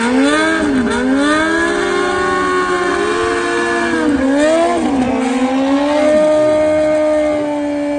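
Suzuki GSX-R1000 drag bike's inline-four engine revving in a burnout, the rear tyre spinning on the wet track. The revs drop and climb again several times, then are held steady and high for the last couple of seconds.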